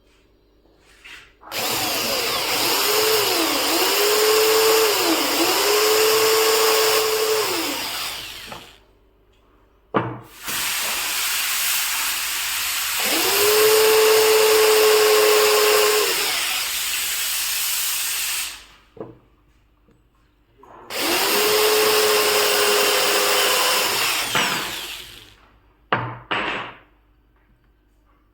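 Electric power tool cutting wood in three runs, its motor pitch dipping and recovering under load, with short knocks in between.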